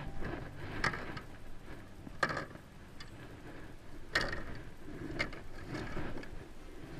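Scattered sharp knocks and clicks on a plastic kayak deck, from handling a caught peacock bass, a fish-measuring board and a landing net. There are four or five knocks, spaced about a second apart, over a low background hum.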